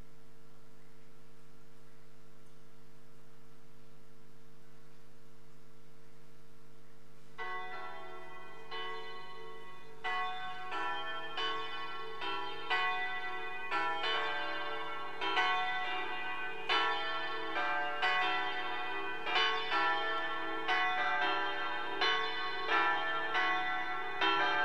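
A steady electrical hum, then, from about seven seconds in, church bells pealing: a run of strikes on several pitches, roughly one every two-thirds of a second, growing louder, the ringing carrying over from each stroke into the next.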